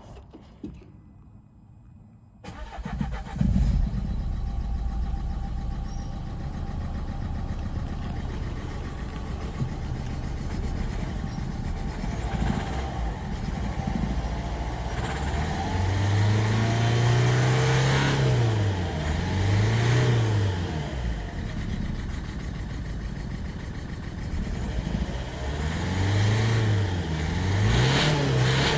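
Renault Mégane 1.5 dCi four-cylinder turbo-diesel engine cranking and starting about two seconds in, then idling, revved up and down a few times in two spells. The engine has a suspected faulty number-3 injector that makes it run rough.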